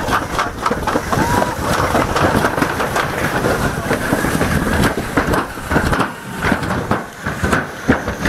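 Toboggan sled rolling and rattling down a metal chute: a dense clatter of many clicks and knocks that thins out to scattered clicks about six seconds in.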